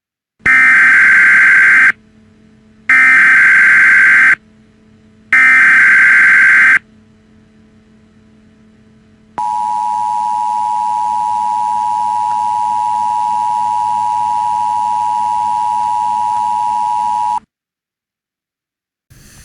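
Emergency Alert System broadcast tones. First come three harsh, warbling data bursts of about a second and a half each, a second apart: the SAME header. Then the steady two-tone attention signal holds for about eight seconds and cuts off abruptly.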